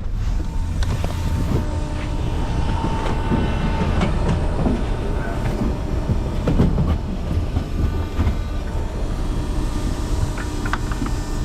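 An engine running steadily with a low rumble, over rattling and scattered knocks.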